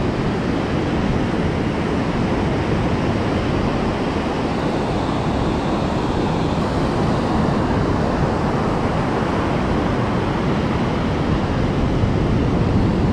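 Steady rush of ocean surf breaking on the beach, mixed with wind noise on the microphone.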